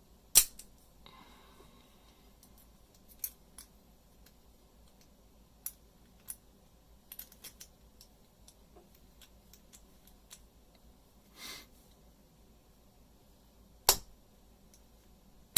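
Sharp metallic clicks and taps from small padlock parts being handled, with two louder clicks, one about half a second in and one near the end, scattered lighter clicks between them and a short scrape midway.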